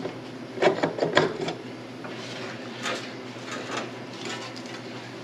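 Metal parts knocking and clinking as the governor assembly of a 1941 John Deere Model A tractor is handled during teardown: a few sharp knocks about a second in, then lighter clicks and rattles, over a steady low hum.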